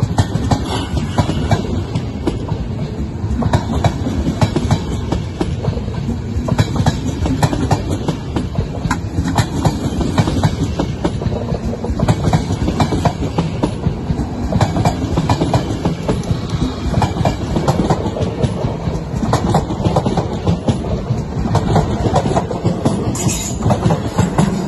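Passenger coaches of a departing train rolling past close by, their wheels clattering over the rail joints in a dense, continuous run of clicks.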